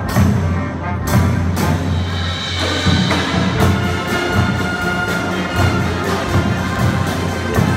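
High school marching band playing: brass and percussion, with a few heavy separate drum hits at first, then held brass notes over faster, steady drumming from a little past the middle.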